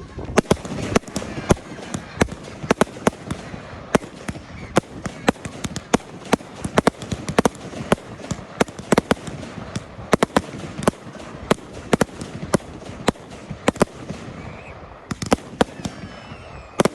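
Fireworks display: a rapid, continuous barrage of sharp bangs, several a second, over a steady crackle.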